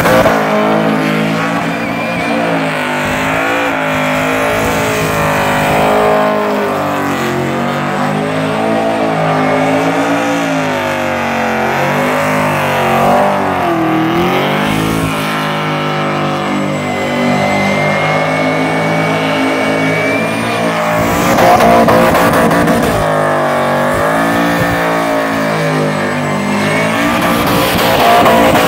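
Supercharged L98 V8 of a VX Commodore held at high revs during a burnout, the revs rising and falling over and over as the rear tyres spin. It gets loudest about 21 s and 28 s in.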